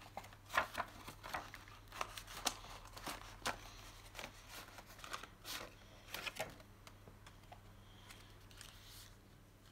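Clear plastic and cardboard packaging of a box of Crayola Silly Scents markers crinkling and clicking as it is handled. A run of sharp clicks and rustles for the first six or seven seconds, then quieter.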